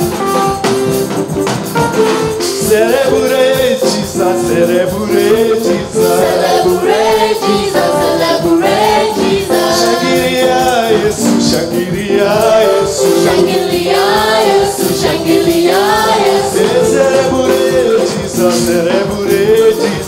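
Live gospel praise-and-worship music: a lead singer with backing singers over keyboard and drums, the percussion keeping a steady beat under the singing.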